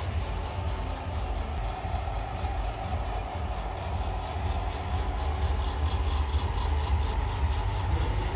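Coffed SRE 500 electric sample coffee roaster running during a roast, its exhaust fan and drum motor giving a steady, even hum.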